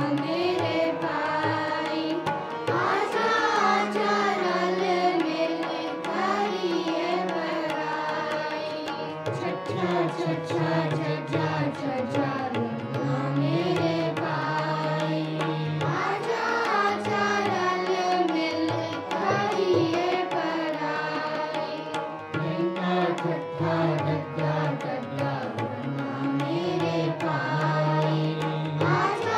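Sikh kirtan: several harmoniums holding the melody and a tabla keeping the beat under a group, children among them, singing a hymn in unison.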